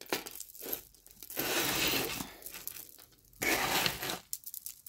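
Costume jewelry being handled and untangled: rustling with light clicks and clinks of chains and beads, including two longer rustles, one about a second and a half in and one near the end.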